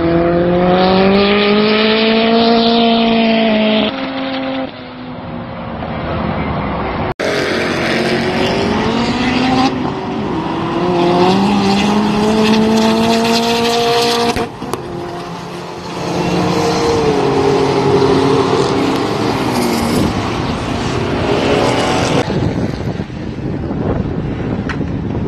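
Several car engines accelerating hard, their pitch rising in long climbs that drop back at each gear shift and then rise again. About seven seconds in, the sound cuts abruptly to another acceleration run.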